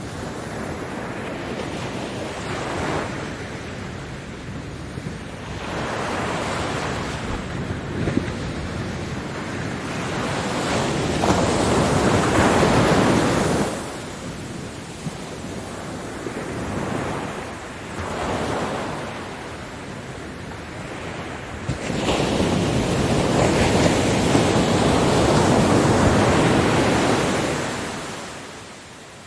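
Ocean waves breaking on a beach: a steady rush of surf that swells and ebbs in slow surges every few seconds. The biggest waves crash about a third of the way in and again over most of the last third.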